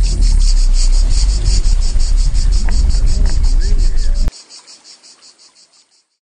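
Cicadas chirring loudly in a fast, even pulse through a small car's open windows, over the low rumble of the car's engine and road noise. The rumble cuts off suddenly about four seconds in, and the cicadas fade out soon after.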